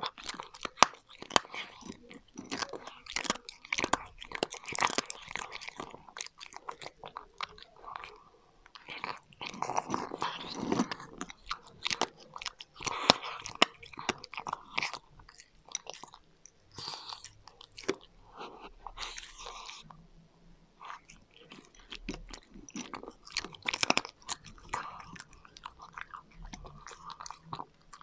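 A cat crunching and chewing dry kibble, a dense run of irregular crisp cracks with a few short pauses between mouthfuls.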